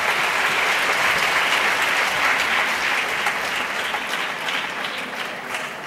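Audience applauding, a dense clapping that fades in the second half and thins out into scattered separate claps near the end.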